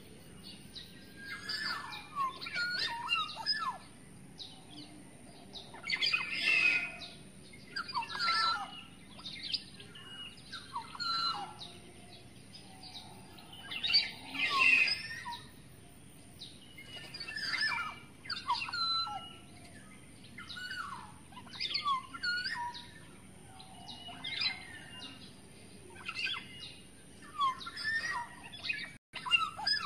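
Black-naped oriole (kepodang) calling: short phrases of sliding whistles mixed with harsher notes, repeated every second or two.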